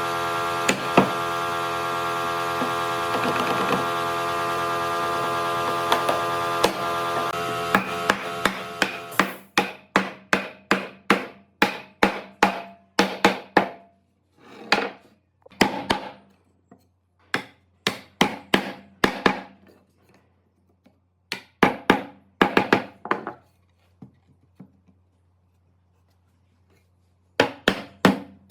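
A power tool runs with a steady pitched whine, then winds down about eight seconds in. Then comes hammering on wood: sharp blows about two a second in runs, with short pauses and a longer silent stretch near the end.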